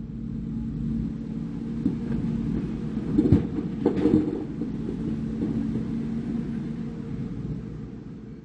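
Heavy diesel construction machinery engine running steadily, with two sharp knocks, one a little after three seconds in and one about four seconds in.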